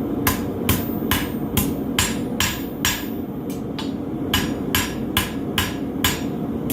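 Hand hammer striking a hot mild-steel horseshoe on an anvil, forging down the tip of a knife blade: a steady run of sharp metal blows, about two to three a second, with a brief pause a little past the middle.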